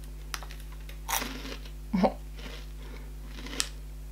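A person chewing a bite of a Nutella B-ready wafer bar, with a few crisp, irregular crunches of the wafer shell.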